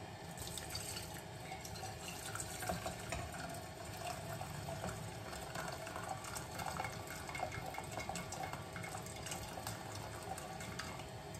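Water pouring in a thin, steady stream from an electric kettle into a metal pan, splashing into the water already in it.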